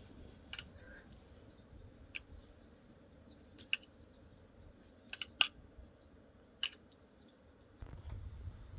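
A handful of sharp clicks and knocks at irregular intervals, with a quick cluster about five seconds in, over faint high bird chirps.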